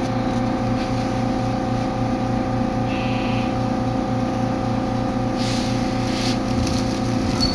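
Steady hum of an electric train's onboard equipment heard inside the carriage, with a low throb pulsing a couple of times a second.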